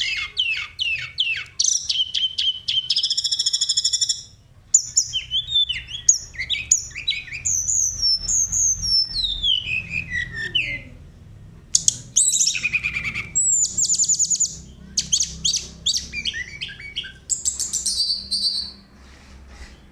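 Caged tledekan gunung, a blue flycatcher, singing a rich, varied song of quick chirps, fast trills and falling whistled notes, with a short break about four seconds in.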